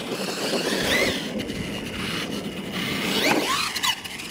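Radio-controlled monster truck's electric motor whining, its pitch rising and falling several times with the throttle, over steady tyre and drivetrain noise on dirt.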